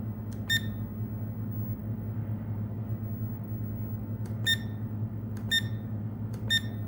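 Digital LED alarm clock beeping as its setting buttons are pressed: four short high beeps, one about half a second in and three about a second apart near the end, each just after a faint click of the button. A steady low electrical hum runs underneath.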